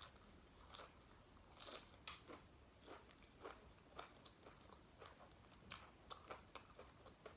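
Faint chewing of food, with soft crunches and irregular mouth clicks.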